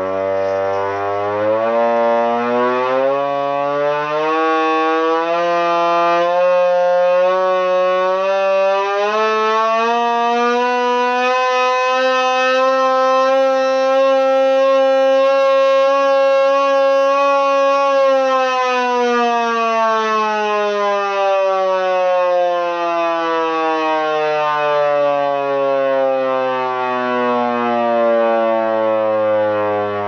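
Vixen Horns VXS-1200MBR hand-crank siren wailing loudly as it is cranked: the pitch rises for about twelve seconds, holds steady for several seconds, then falls slowly as the siren winds down.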